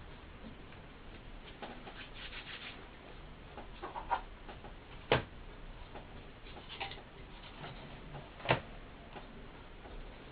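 Scattered light clicks and taps, with two sharper knocks about five and eight and a half seconds in, over a faint low hum.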